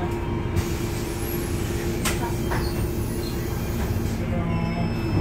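Autosan M10LF city bus driving along, heard from inside at the front: the engine and road rumble run steadily under a constant hum. A hiss comes in for a few seconds in the middle, with two short rattling clicks about two seconds in and a sharp knock at the very end.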